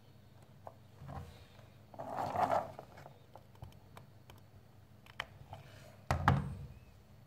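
Handling noise from a popsicle-stick craft and hot glue gun: scattered light wooden clicks and taps, a short scraping rustle about two seconds in, and a sudden knock about six seconds in.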